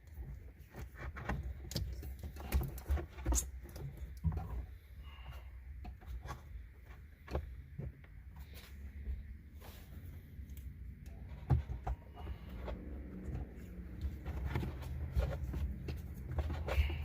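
Scattered clicks, rustles and small plastic knocks as spliced radio wiring is handled and taped or zip-tied together, over a steady low hum.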